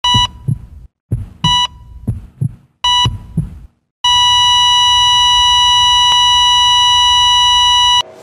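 Heart monitor sound effect: three short beeps about a second and a half apart, with low heartbeat thuds between them. About halfway through, the beeps give way to a steady flatline tone held for about four seconds that cuts off suddenly, the monitor's signal that the heart has stopped.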